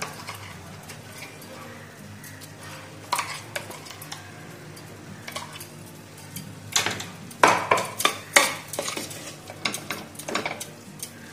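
A steel spoon scrapes dry-coconut paste out of a stainless steel mixer jar, and a ladle clinks and scrapes against a stainless steel pressure cooker as the paste is stirred into the masala. The clinks and scrapes are scattered, with the loudest cluster about two-thirds of the way through.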